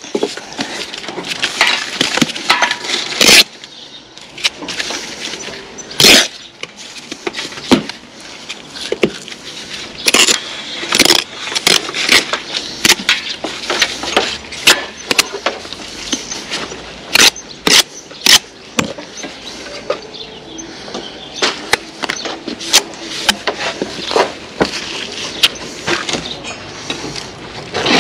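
A steel brick trowel scraping, chopping and slapping sand-and-cement mortar on a spot board. It comes as irregular sharp clicks and knocks.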